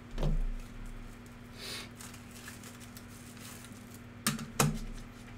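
Trading cards and card holders being handled on a tabletop: a soft thump just after the start, a brief swish a little later, and two sharp clicks in quick succession near the end.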